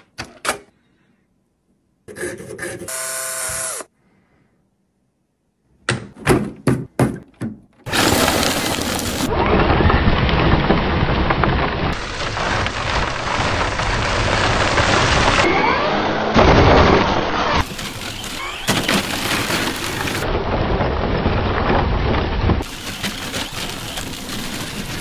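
Traxxas rally RC car driving hard over loose gravel. The tyres churn and spray stones in a dense, continuous rush from about a third of the way in, after a few short knocks separated by silence. The sound changes abruptly several times.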